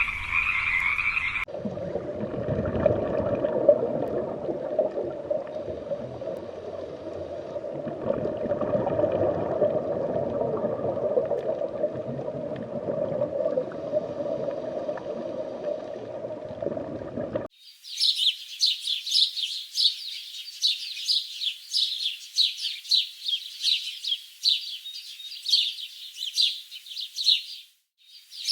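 A dense chorus of frogs croaking. About two-thirds of the way through it cuts off abruptly, giving way to rapid, high-pitched chirping repeated many times a second.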